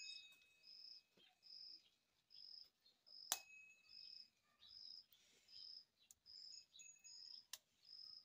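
Faint insect chirping: a short high chirp repeating evenly about every three-quarters of a second. A sharp click about three seconds in and another near the end.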